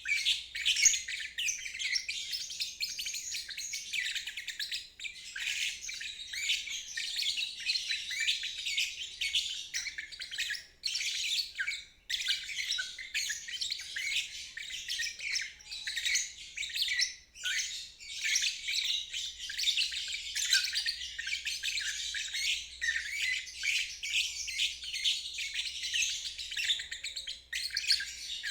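Lovebird singing in the 'ngeriwik' style: a rapid, unbroken stream of high chirps and twitters, with brief pauses about ten and twelve seconds in.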